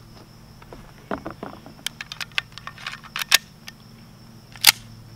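Small metallic clicks of 8mm blank cartridges being pressed one by one into a pistol magazine, then a single louder sharp metallic click near the end as the Killmar 911 blank pistol is loaded.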